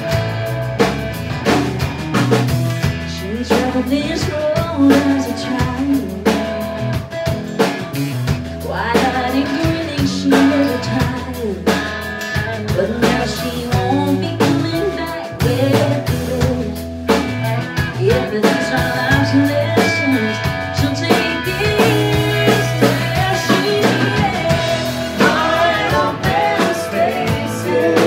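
Live country band playing: a woman singing lead over acoustic guitar, electric guitar, electric bass and a drum kit, with a steady beat.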